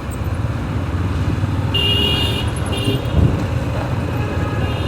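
Street traffic picked up by a wireless clip-on microphone with noise cancellation on low: a steady engine rumble, with a vehicle horn honking about two seconds in and again briefly just before three seconds.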